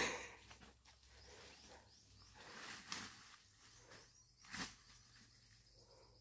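A sharp knock, then faint rustling with two softer knocks, a little before three seconds in and at about four and a half seconds.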